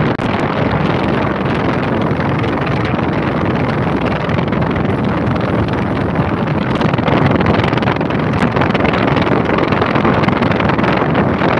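Loud, steady rushing and buffeting wind noise on a phone microphone, from a fan's airstream blowing across it.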